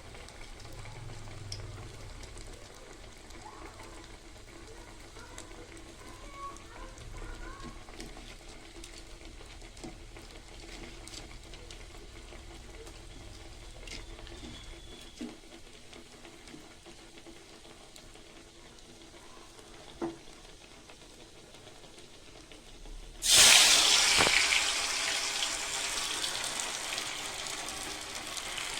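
Quiet handling noise with a few small clicks, then about 23 seconds in a sudden loud sizzle that settles into steady frying: cutlets going into hot oil.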